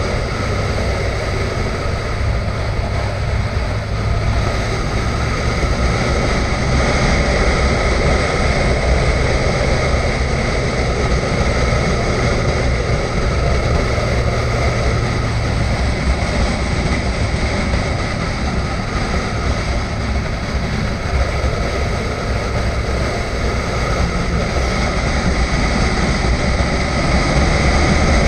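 Motorcycle engine running steadily under way, mixed with wind rush, heard from a camera mounted on the bike.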